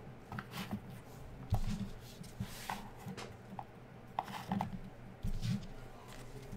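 Light handling noises on a tabletop: trading cards and card boxes being moved about by hand, with scattered soft rustles and a few dull knocks.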